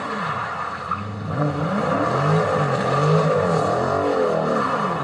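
Dodge Scat Pack's 6.4-litre Hemi V8 revving hard, its pitch rising and falling again and again from about a second in, as the car is driven sliding through turns.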